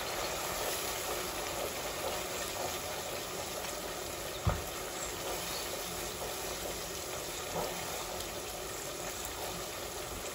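Onion and curry-powder masala with a little water bubbling and sizzling in a nonstick pot while a wooden spatula stirs it, with one knock of the spatula against the pot a little under halfway through.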